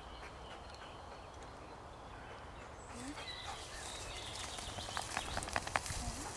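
Footsteps and rustling in long meadow grass as a person and a dog set off walking together, with a run of sharp swishes in the second half. Birds sing faintly in the background.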